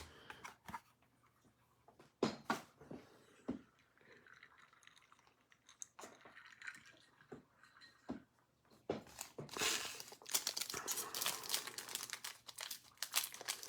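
Card packaging being handled and opened: scattered clicks and rustles, then a busy stretch of plastic crinkling and tearing from about nine seconds in.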